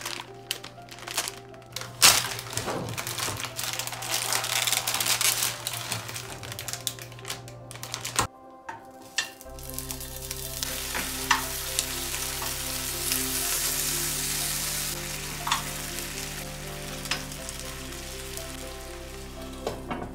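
Crinkling and clicking of the plastic gyoza packet, then, after a short gap, a steady sizzling hiss from frozen gyoza being laid into a frying pan, with scattered clicks of chopsticks and the plastic tray. Background music with long held notes plays underneath.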